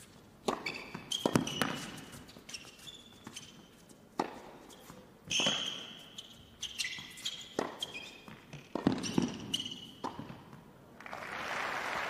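Tennis rally on an indoor hard court: sharp racket strikes and ball bounces, with short high squeaks of shoes on the court surface. Crowd applause starts near the end as the point finishes.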